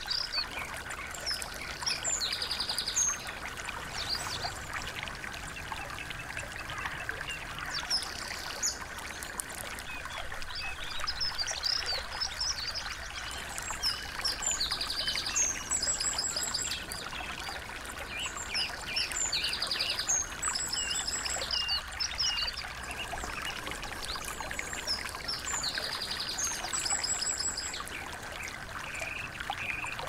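Small songbirds singing quick chirps and fast trills, the same trilled phrase coming back every few seconds, over the steady trickle of a small stream.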